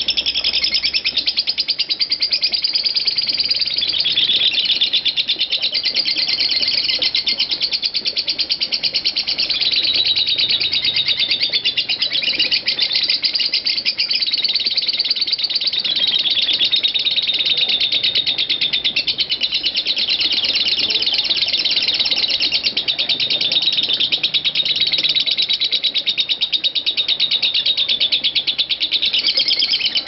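Lovebird ngekek: a single unbroken, very fast high-pitched chattering trill that goes on without a pause. It is the machine-like 'konslet' style of this song.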